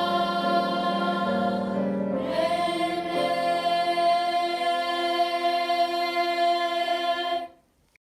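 A choir sings a hymn, moving through the last notes and then holding a long final chord that cuts off sharply about seven and a half seconds in.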